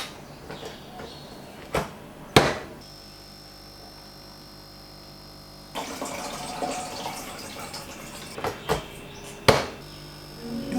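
Kitchen sounds: a few sharp knocks of utensils or dishes, a steady hum lasting about three seconds, then water running from a tap for several seconds with more knocks.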